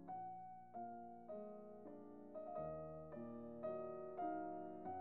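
Background piano music: a slow line of notes, each struck and fading, about two a second.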